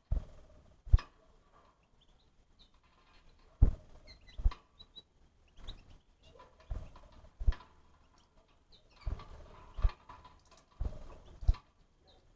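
An animal moving about, making about a dozen irregular thumps and knocks with faint short high squeaks or chirps between them.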